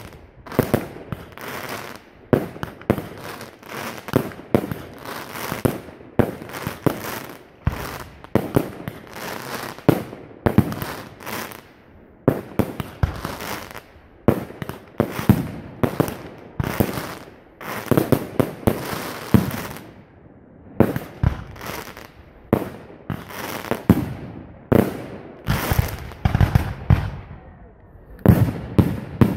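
Fireworks display: shells and comets firing and bursting in quick succession, a bang or a cluster of bangs every second or so. Near the end the bursts come denser and heavier.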